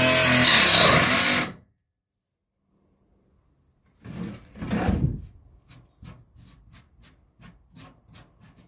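Electric saw running as it cuts through wood, cutting off abruptly about a second and a half in. After a pause come two short scraping or rubbing noises from handling the wood, then a run of light, evenly spaced clicks about three a second.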